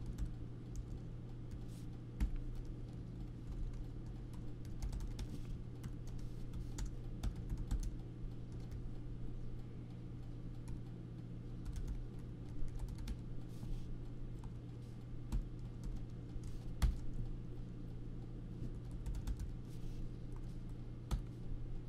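Typing on a computer keyboard: irregular runs of keystroke clicks, with short pauses, over a steady low hum.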